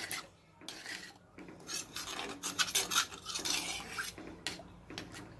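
A ladle stirring thin gravy in a clay kadai, scraping and rubbing against the inside of the pot in irregular strokes.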